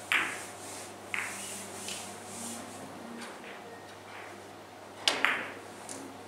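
Carom billiard balls clicking: two sharp clicks near the start as rolling balls strike each other. Near the end a new shot brings a quick pair of clicks, the cue tip on the cue ball, then ball on ball.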